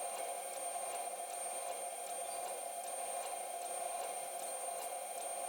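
A 100 W CO2 laser cutter running during a cutting job: a steady machine hum with a thin high whine and faint, evenly spaced ticks.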